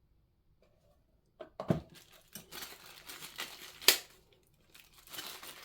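Plastic packaging being crinkled and torn open by hand, after a short quiet start, with a dull thump about a second and a half in and a sharp click near four seconds.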